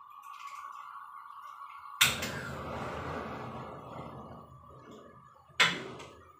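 Kitchen clatter from cookware: a sharp knock about two seconds in, followed by a hiss that fades over a few seconds, and a second sharp knock near the end, over a steady high thin whine.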